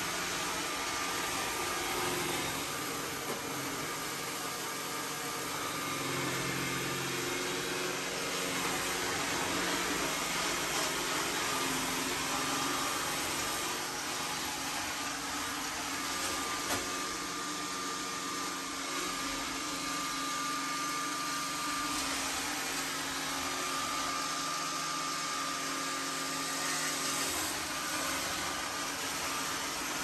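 iRobot Roomba s9+ robot vacuum running as it cleans a hard floor: a steady whirr of its motors with a faint steady whine, and a single small click past the middle.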